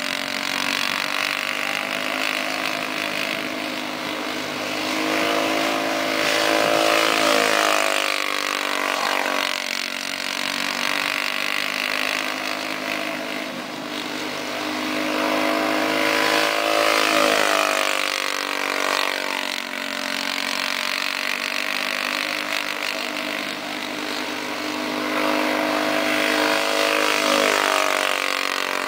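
The small engine of a caged kart running hard around a track, its note dipping as it slows for the bends and climbing again as it accelerates out. It grows louder about every ten seconds as the kart comes past.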